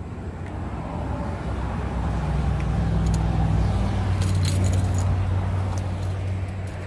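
A motor vehicle passing by, its low drone building to a peak about four to five seconds in and then easing off. A few light clinks sound around the middle.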